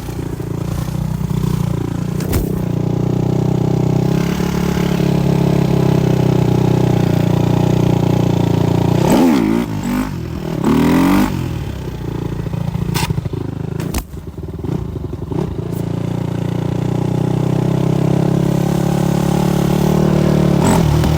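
Supermoto motorcycle engine running hard at a steady high speed. About nine to eleven seconds in it revs quickly up and down a few times, and it dips sharply for a moment around fourteen seconds before pulling again.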